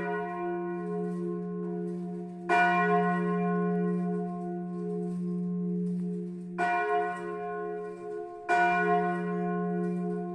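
Church bells ringing: a deep, steady bell hum carries on throughout, and separate strokes come about two to four seconds apart. Each stroke sets off a bright ring that slowly dies away.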